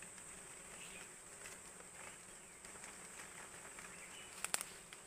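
Faint, steady high-pitched insect drone, with a few sharp clicks near the end.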